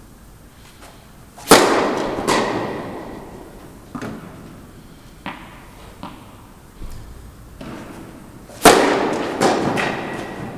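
Tennis racket striking the ball on two serves, each a sharp crack with a long hall echo. Each is followed under a second later by a second, slightly quieter crack, and a few softer knocks fall between the two serves.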